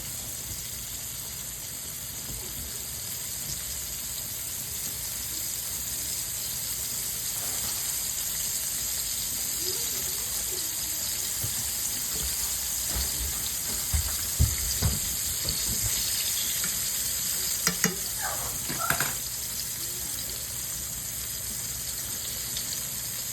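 Food frying in hot oil in a pan: a steady sizzle, with the oil spitting. A few short knocks and clicks come partway through.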